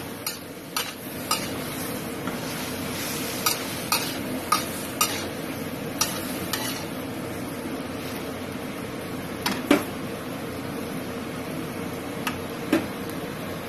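Pechay and mushrooms sizzling in a stainless-steel wok while a metal spatula stirs them, clinking and scraping against the pan every so often; the sharpest clink comes about two-thirds of the way through.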